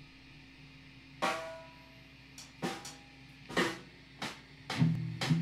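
Drum kit struck a few scattered single times, the hits about half a second to a second apart, over a low steady hum. Near the end the hits come closer together and guitar notes join in.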